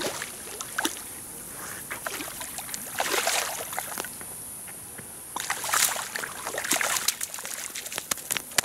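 A hooked carp thrashing and splashing in shallow water as it is pulled ashore, in irregular bursts of splashing, the biggest about three seconds in and again around six seconds in.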